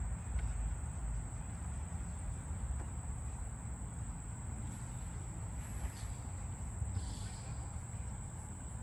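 Steady high-pitched insect chorus, with a constant low rumble underneath.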